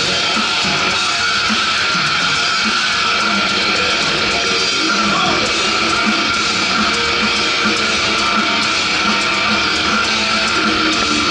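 Heavy metal band playing live: distorted electric guitars, bass and drums in a dense, steady wall of sound, heard from far back in an arena crowd.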